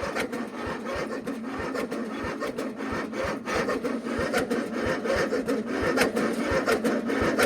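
1997 MTD Yard Machines riding mower's engine being cranked by its electric starter on a hard cold start at 10 °F, choke on: it turns over steadily with a fast, even chugging but does not catch, and the cranking stops at the very end.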